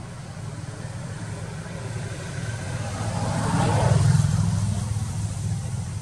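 A motor vehicle passing: a steady low engine hum swells louder to a peak about four seconds in, then fades away.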